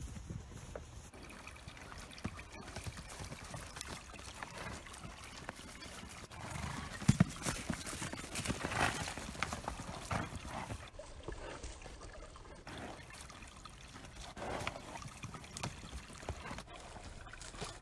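Horses cantering and playing on a grass pasture, their hooves beating irregularly on the turf, with a couple of loud thumps about seven seconds in.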